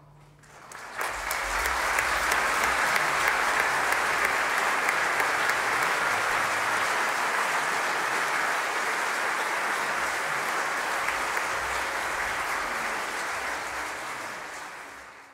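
Concert-hall audience applauding at the end of a piece of music, swelling to full strength within the first two seconds, holding steady, then fading away near the end.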